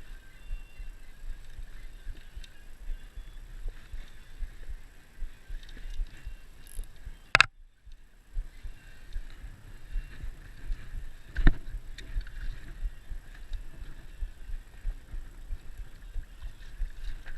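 Low rumble of water and wind with a faint steady high tone, broken by two sharp knocks about four seconds apart. The first knock is followed by a brief drop to near silence.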